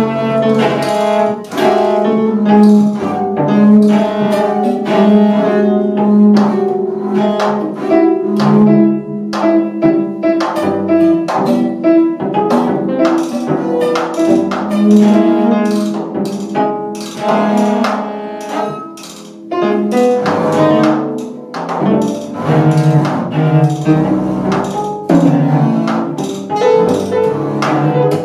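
Contemporary improvised chamber music: cello and double bass bowing held, overlapping low notes, with frequent sharp, irregular clicks and taps from a prepared snare drum.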